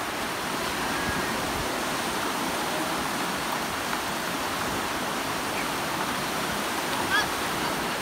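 Sea surf breaking and washing up the beach: a steady, even rush of waves.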